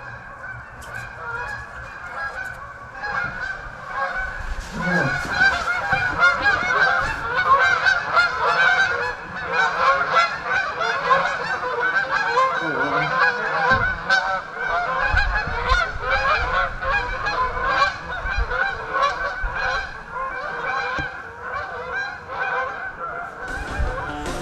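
A flock of geese honking, many birds calling over one another at once; it swells and gets loud about five seconds in.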